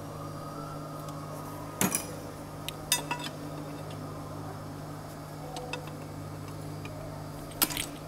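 A steel pry tool clinking against the crankshaft and bearing shells of a Hyundai D4CB diesel while a seized connecting-rod bearing shell is pried out: a few sharp metal clinks, about two seconds in, three seconds in and near the end, over a steady low hum.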